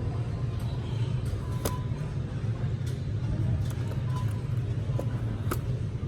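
Steady low rumble of store background noise, with a few faint light clicks and brief faint tones.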